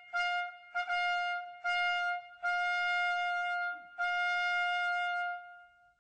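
Trumpet fanfare on a single repeated note: four short notes, then two long held ones.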